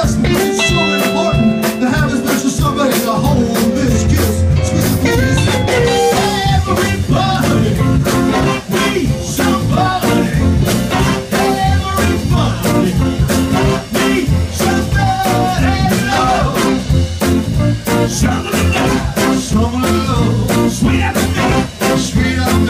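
Live band music: a horn section of saxophones and trumpets with electric guitar, bass, drums and keyboard, playing over a steady beat.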